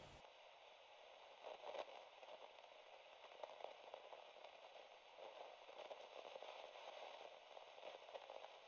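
Faint radio static: a thin, even hiss with scattered light crackles.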